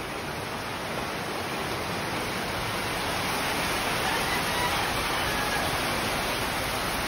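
Heavy typhoon rain falling steadily, a dense even hiss that grows a little louder over the first few seconds.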